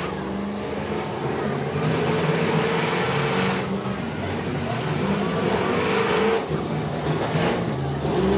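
School bus engines running and revving in a demolition derby, their pitch wavering up and down over a steady wash of noise.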